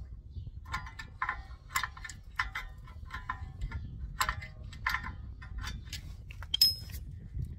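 Rear brake disc with a drum-type handbrake inside, turned and worked by hand as the handbrake shoe adjuster is wound out toward the drum: a run of short, ringing metallic clicks, about two a second, with a sharper, higher click near the end.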